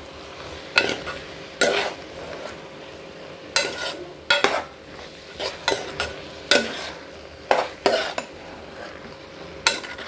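A metal spoon stirring and scraping raw rice with tomato around a hot pan, a sharp stroke every second or so, over a faint sizzle as the rice is sautéed before the water goes in.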